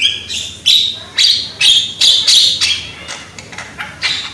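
Javan myna giving loud, harsh chattering calls in a rapid series, about two a second, growing weaker near the end.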